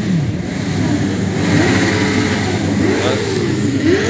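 Sport motorcycle and car engines being revved as they pass along a street, the engine pitch rising and falling several times over a steady rumble.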